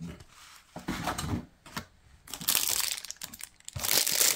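Clear plastic bag crinkling as a bagged radio antenna is handled and lifted out of a cardboard box. Scattered short rustles at first, turning into denser, louder crinkling in the last second or so.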